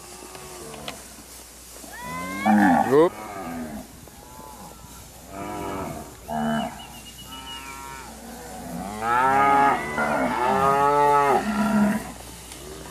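Herd of zebu cattle mooing, several animals calling one after another and over each other. There is a loud call about two and a half seconds in, and a long run of overlapping moos from about nine seconds in.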